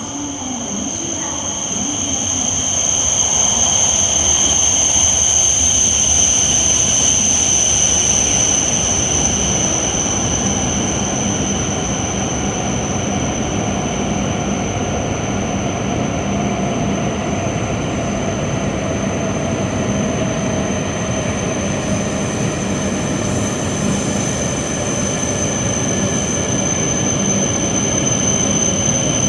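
Tohoku Shinkansen bullet train moving through the station at low speed, a dense rumble with steady high-pitched whines over it. A fainter tone slowly falls in pitch, as of the train slowing. It grows louder over the first few seconds and then holds steady.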